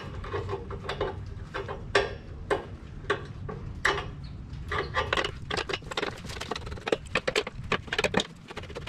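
Light, irregular metallic clicks and taps from a copper air line and its fitting being worked loose by hand, with quicker runs of clicks in the second half.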